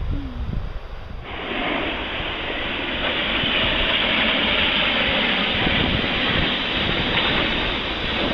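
Rushing whitewater of river rapids, a loud steady hiss that starts abruptly about a second in, with wind buffeting the microphone underneath.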